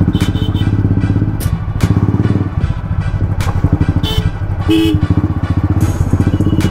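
Royal Enfield single-cylinder motorcycle engine running at low speed, its exhaust beating in a steady, even thump.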